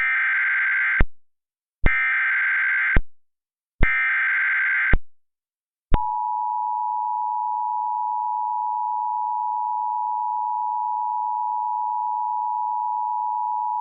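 Emergency Alert System tones: three bursts of SAME header data, about a second each and a second apart, then the steady two-tone attention signal, which starts about six seconds in and holds. Together they herald an emergency alert, here a flash flood warning.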